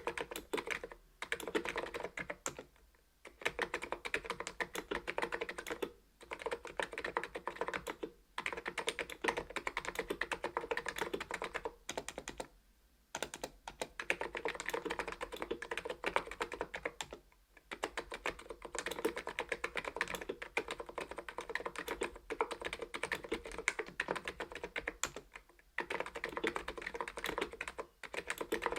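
ABKO KN01 keyboard with stock 45 g switches being typed on continuously, a fast run of soft keystrokes broken by short pauses every few seconds.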